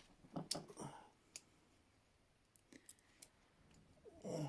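Faint, scattered metal clicks and small rattles of a tool working in the lock of Clejuso 11R handcuffs, with the double lock not yet off.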